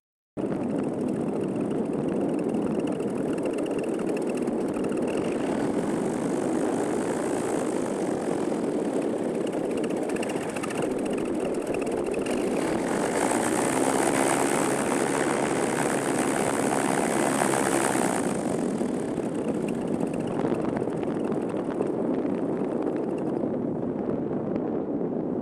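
Motor paraglider's engine and propeller running steadily, with air rushing past the microphone. The sound cuts in abruptly at the start, swells louder and hissier for several seconds in the middle, and the hiss eases near the end.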